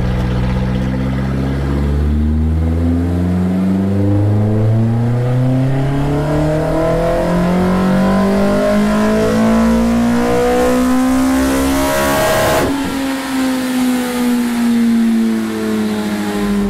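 Toyota 4A-GE twin-cam four-cylinder with individual throttle bodies and headers, breathing through two beaten-up straight-through 3-inch mufflers, pulled on a chassis dyno. The revs climb steadily under full load for about twelve seconds. Then the throttle shuts suddenly and the revs wind down.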